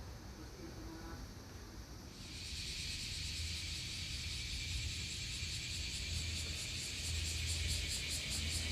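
Shrill insect chorus that starts suddenly about two seconds in and keeps going with a fast pulsing shimmer, over a low steady hum.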